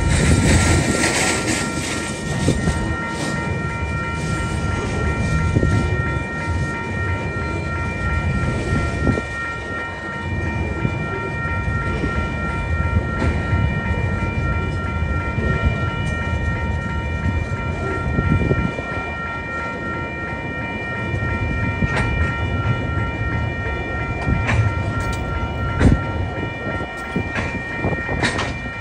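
Coal hopper wagons of a freight train rolling past: a steady rumble of steel wheels on rail with a few sharp clacks, over steady high-pitched tones.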